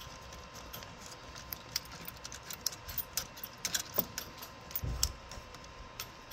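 Phillips screwdriver turning a small screw out of the coin-reject button housing in a Stern pinball machine's coin door: irregular small metallic clicks and light rattles, with one dull low thump about five seconds in.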